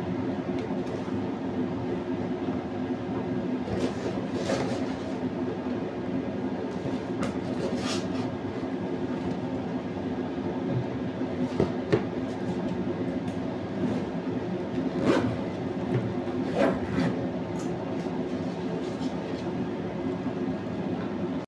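Steady mechanical hum of a running kitchen appliance, with scattered clicks and rustles as plastic clip-lid food containers are handled and packed into a fabric insulated lunch bag.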